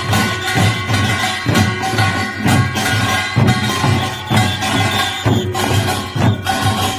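Korean pungmul percussion ensemble playing: dense, driving drum strokes under steady ringing metallic tones.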